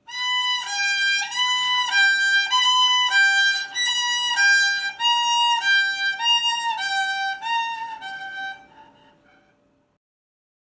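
Violin imitating an ambulance's two-tone siren: two bowed notes alternate high and low, each held a little over half a second, over and over, then the playing fades out near the end.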